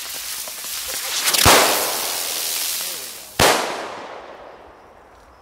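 Supreme buzz bomb fireworks spinning with a hissing buzz. The buzz is broken by two sharp bangs about two seconds apart, each bomb ending in its report, and the sound fades after the second bang.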